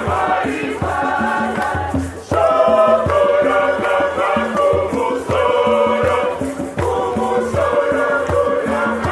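Choir singing a hymn in phrases over a steady drum beat.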